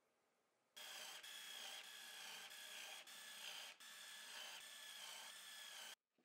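Cordless drill boring a hole into plywood: a steady motor whine mixed with cutting noise that starts abruptly about a second in, dips briefly a few times, and cuts off abruptly near the end.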